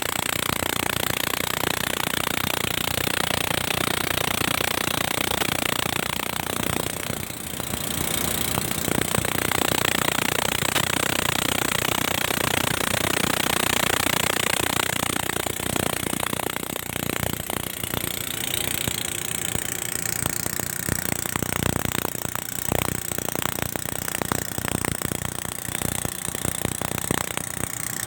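Diesel-electric locomotive RGE-20 No. 5117 standing and running, making an unusual loud mechanical noise. The noise turns into a rapid knocking clatter from about halfway through.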